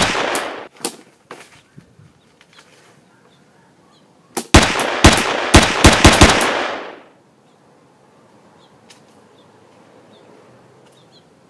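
Gunshots dubbed in for a film: one sharp shot at the start, then a rapid volley of about eight shots over two seconds, about four and a half seconds in, with echoing tails.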